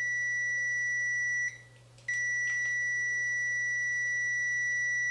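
Aneng AN888S bench multimeter's continuity beeper sounding a steady high-pitched beep with the test probes shorted together. The tone breaks off about a second and a half in and resumes half a second later.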